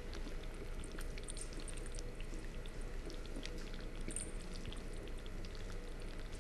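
Thick corn soup being ladled from a glass saucepan into a glass bowl: soft pouring with scattered light clicks of the metal ladle against the glass.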